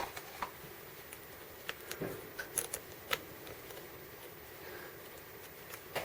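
Scattered small clicks and taps of an Allen key and cleat screw being worked as an SPD cleat is threaded onto a cycling shoe's cleat plate.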